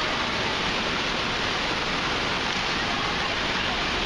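Steady rush of splashing water with faint distant voices and shouts over it.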